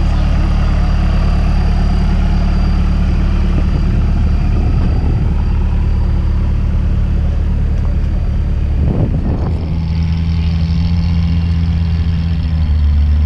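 Off-road vehicle engine running steadily at a low pitch, close by. About nine seconds in, its note changes and settles at a different pitch.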